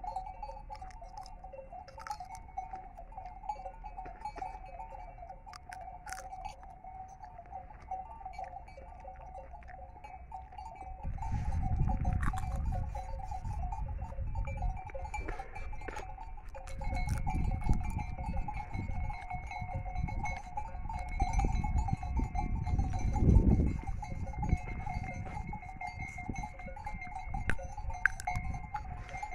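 Flock of Merinolandschaf sheep at pasture, with a steady wavering tone throughout. From about eleven seconds in there are stretches of low rumbling on the microphone.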